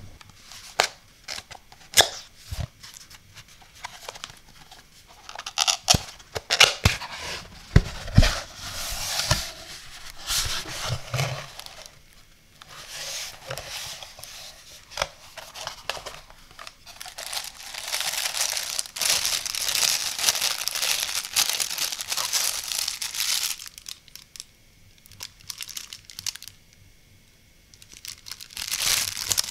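Unboxing handling sounds: sharp taps and clicks of a cardboard box being opened over the first several seconds, then long spells of plastic packaging crinkling and rustling as a USB cable is taken out of its plastic bag, with a quieter stretch shortly before more crinkling near the end.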